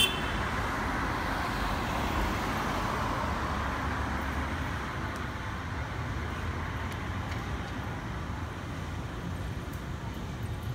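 Boeing 767-300ER jet airliner passing overhead, a steady rumbling roar that slowly fades as it climbs away. A short sharp beep right at the start is the loudest moment.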